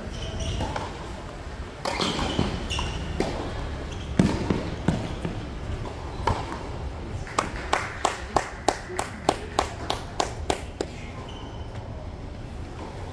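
A tennis ball bounced repeatedly in quick succession, about a dozen sharp knocks roughly three a second, in the run-up to a serve. Earlier, a couple of louder single knocks of the ball about four to five seconds in.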